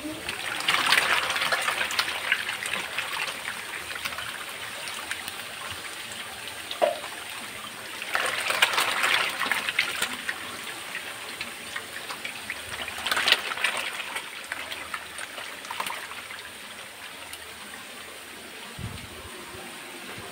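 Catfish thrashing and splashing at the water surface in plastic buckets, in surges about a second in, around eight to ten seconds and near thirteen seconds, with lighter water noise between.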